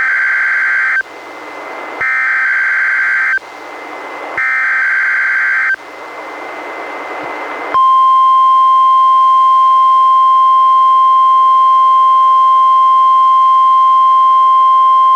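NOAA Weather Radio Required Weekly Test received on a weather radio: three one-second bursts of SAME header data tones with radio hiss between them. About eight seconds in, the steady 1050 Hz warning alarm tone begins and holds.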